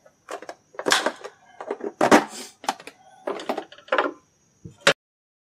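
Old saw chain being handled and packed into its cardboard box: an irregular run of clinks, rattles and rustles that cuts off suddenly about five seconds in.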